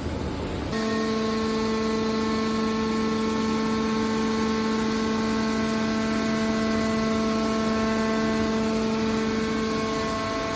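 Steady whining hum of a hydraulic metal baler's power unit running, starting about a second in and holding one even pitch.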